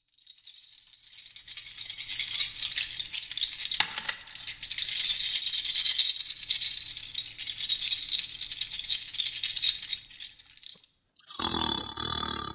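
A fast, dense rattling, like a shaker, swelling in over the first two seconds, running steadily and stopping about two seconds before the end. Just before the end a different, pitched sound begins.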